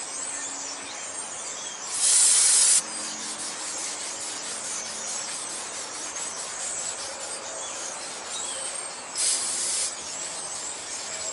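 Aerosol brake cleaner sprayed in two short hissing bursts, about two seconds in and about nine seconds in, onto oil-soaked drum-brake shoes, with a rag rubbing the shoe linings in between to wipe the oil off.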